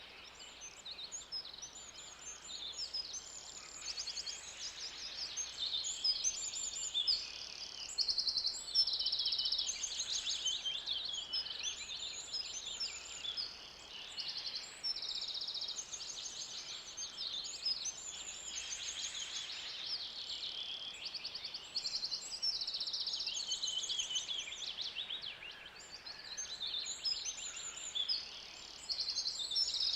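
Forest ambience: many birds calling at once, a dense chorus of high trills and chirps overlapping without a break.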